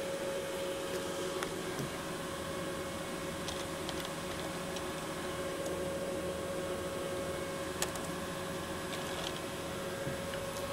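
Steady hum and hiss of running bench electronics, a desktop PC and an oscilloscope with their cooling fans, under a constant mid-pitched whine, with a few faint clicks.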